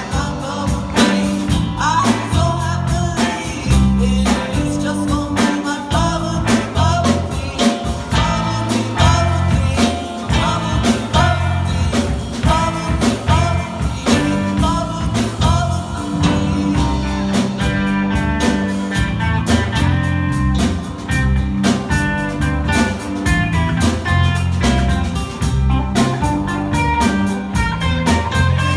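Live rock band playing: drum kit keeping a steady beat under bass and guitar lines.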